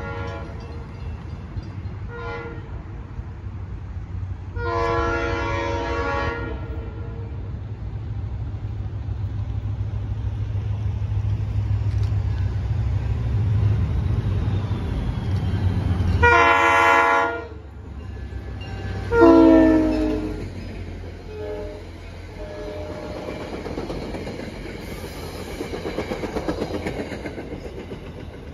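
Approaching diesel train blowing its air horn in a series of blasts, short ones first and then longer ones, over a steady low engine rumble. The blast about 19 seconds in drops in pitch as the locomotive passes, and the rush of the passing train follows near the end.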